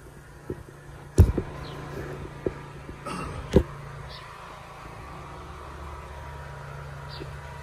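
Handling noise from a phone moved through a papaya plant: several sharp knocks and rubs in the first four seconds, the loudest about a second in and again a little after three seconds. Under them runs a steady low hum.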